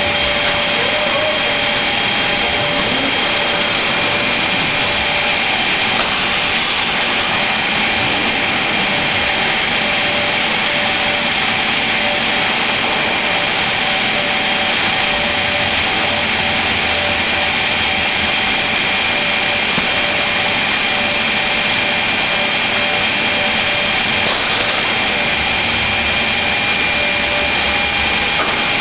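Automatic MDF board-cutting machine running and cutting board, a steady dense noise with several high, unchanging whining tones.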